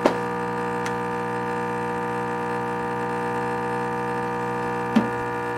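Espresso machine pump humming steadily while a shot pours into two shot glasses, with a few light clicks.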